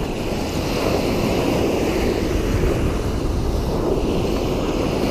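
Small waves washing on a sandy shore, mixed with wind on the microphone: a steady rushing noise.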